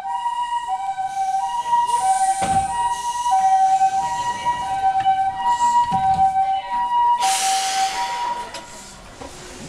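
Two-tone electronic warning signal alternating a high and a low note, about two notes a second, as a Keihan 700 series train pulls out; it stops about seven seconds in and a loud hiss takes over.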